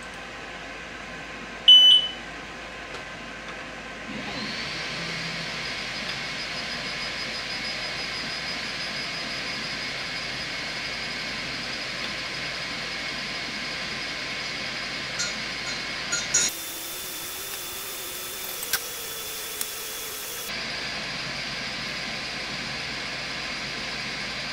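xTool S1 20 W diode laser engraver beeping once, short and loud, about two seconds in as the job starts. It then runs with a steady whirr of its fans and a faint high whine while engraving a rock, with a few light clicks.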